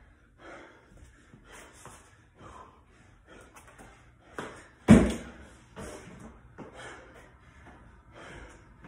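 Heavy, rhythmic breathing during burpee box jump-overs, with one loud thud about five seconds in from a body or feet hitting the floor or the wooden plyo box.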